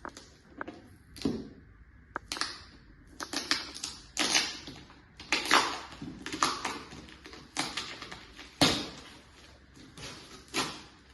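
A cardboard courier package being opened by hand: a series of sharp ripping and scraping strokes of tape and cardboard, about one a second and some in quick clusters, with rustling handling in between.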